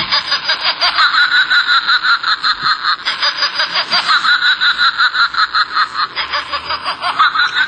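Laughing plush potato-head toy, squeezed, plays a recorded high-pitched laugh through its small built-in speaker. It is a fast, even string of 'ha-ha' pulses, several a second, with a thin, tinny sound.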